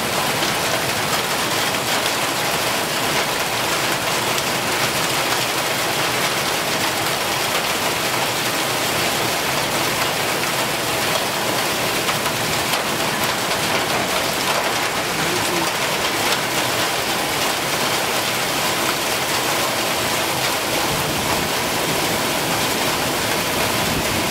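Hail and heavy rain hitting pavement and cars: a steady, dense hiss made of countless small impacts, unchanging throughout.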